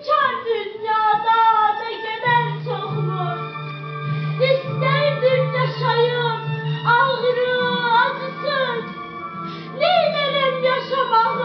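A young female voice singing a slow, sliding melody over instrumental music, with a steady low note held underneath for several seconds in the middle.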